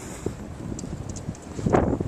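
Boots crunching and thudding through deep fresh snow in uneven steps, getting louder toward the end.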